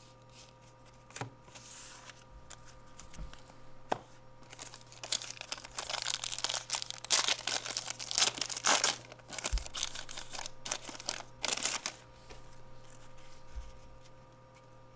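A 1992 Fleer jumbo baseball card pack being torn open, its wrapper crinkling and tearing in a run of sharp crackles that starts about five seconds in and lasts about seven seconds. A few light clicks come before it.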